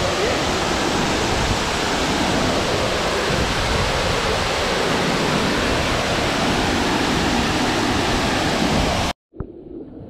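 Waterfall pouring into its plunge pool: a loud, steady rush of falling water. It cuts off abruptly about nine seconds in, and a fainter wash of water follows.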